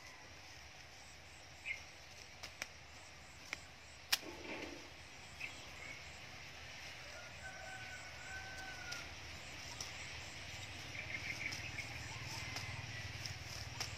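Scissors snipping lime-tree leaf stems: a handful of sharp, separate clicks, the loudest about four seconds in, over a faint outdoor background.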